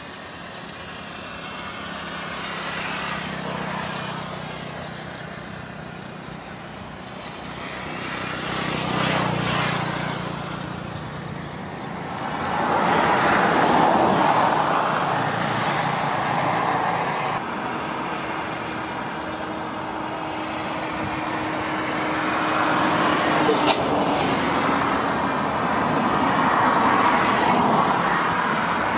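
Excavator and truck diesel engines working under load, the drone swelling and easing several times as the excavator pushes the truck stuck in the mud.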